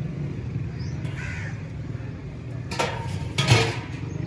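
Crows cawing: a short caw about a second in, then a louder, harsh, rasping burst about three and a half seconds in, over a steady low hum.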